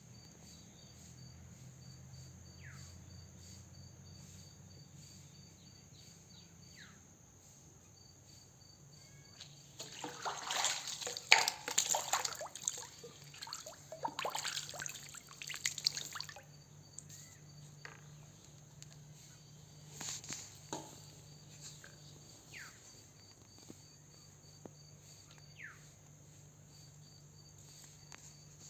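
Water splashing and sloshing in a run of irregular bursts lasting about six seconds, with a shorter splash later, over a steady high insect chirring and a few short falling bird-like chirps.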